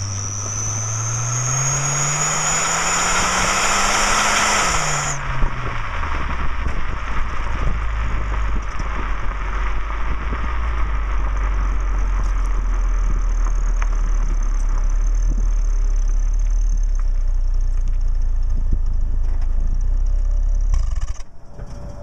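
Saturn SL2's 1.9-litre four-cylinder engine accelerating with a fake turbo whistler in the exhaust. The whistle rises in pitch with the revs, and both cut off suddenly about five seconds in. The engine then runs on with a steady low drone and a faint whistle, until the sound drops away near the end.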